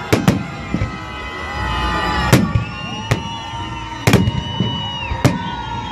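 Fireworks salute: about eight sharp bangs of bursting shells at uneven intervals, two close together near the start and two more a little past the middle, with thin wavering whistle-like tones sounding between them.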